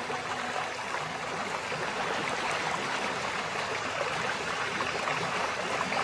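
Waterfall rushing steadily: an even hiss of falling water.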